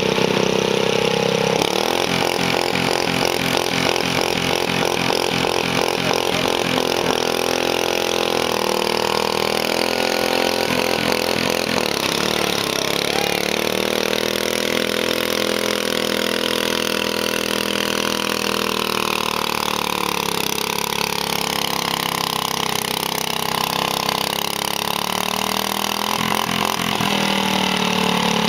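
Small garden tractor engine running hard under load as it drags a weight-transfer pulling sled, its pitch rising and falling as the load builds.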